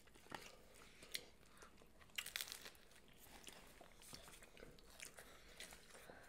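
Faint crunching and chewing of a crispy hard-shell taco, with a cluster of sharper crunches about two seconds in.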